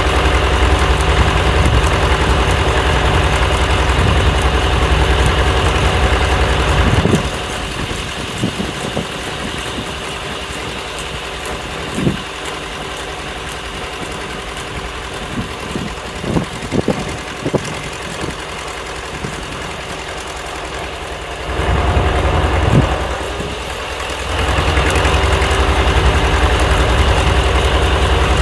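Engine powering an antique Corley sawmill, running steadily. About seven seconds in it drops much quieter for a long stretch, with scattered sharp knocks and clicks, then comes back up loud for the last few seconds.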